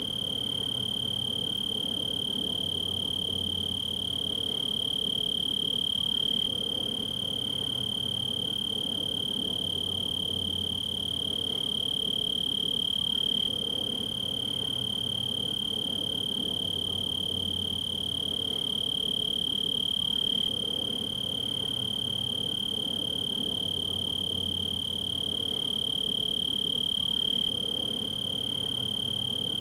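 A male tree cricket singing: a steady, unbroken high-pitched trill, made by its raised wings vibrating.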